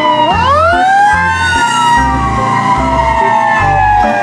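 Fire engine siren wailing. One wail rises for about a second and then slowly falls, overlapping the falling tail of an earlier wail, over a low regular beat.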